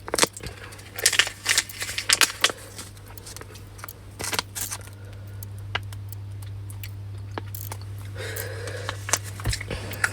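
Crinkling and crackling of a plastic snack packet being handled and opened, in a few short spells with quieter gaps, over a steady low hum.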